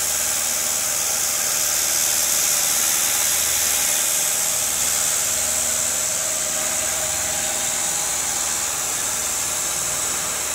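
CNC-converted knee milling machine running a program: a steady hiss over the hum of its motors, with a faint tone rising slightly about six seconds in.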